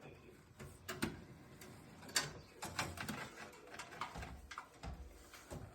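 Irregular clicks and knocks of hand work on a ceiling-mounted fan coil unit as it is taken apart, about ten scattered strikes, the sharpest about two seconds in.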